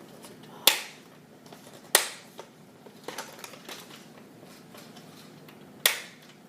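Hard plastic clicks and clacks from a Nerf Rival Apollo XV-700 blaster being loaded by hand: three sharp, loud clacks, one near the start, one about two seconds in and one near the end, with lighter clicks in between.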